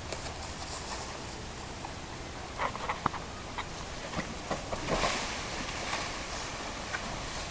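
Steady outdoor hiss with a few short knocks and scuffs as a person runs across grass and scrambles up a cinder-block wall, and a louder rush of noise about five seconds in.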